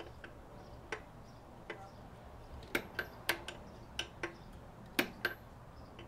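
Faint, sharp metallic clicks, about a dozen at uneven spacing, from a wrench working a 2016 Harley-Davidson Heritage Softail's rear axle adjuster bolt, turning it in to set the rear wheel alignment.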